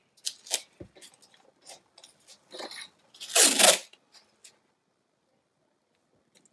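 Brown paper tape pulled off its roll, a loud stretch of about half a second roughly three and a half seconds in. Before it come light clicks and rustles as the roll and the board are handled.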